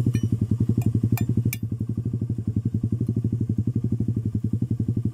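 Motorcycle engine idling with a steady, even beat. A few sharp metal taps come in the first second and a half, from the hammer and punch on a motorcycle sprocket hub.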